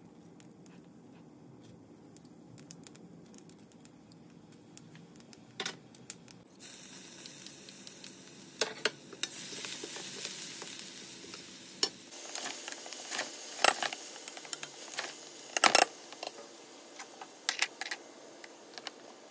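Chopped garlic and onion frying in hot ghee in a stainless steel pan: quiet at first, then a sizzle starts suddenly about six seconds in. A wooden spoon stirs through it, with a few sharp knocks against the pan.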